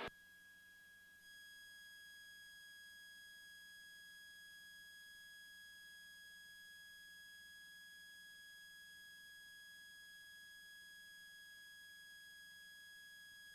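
Near silence on the cockpit audio feed, with a faint steady high-pitched electronic tone that comes on about a second in and holds unchanged.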